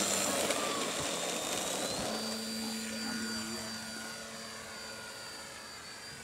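Electric motor and propeller of a radio-controlled model plane whining on its take-off and climb. The pitch rises slightly about two seconds in, and the sound then fades steadily as the plane flies away.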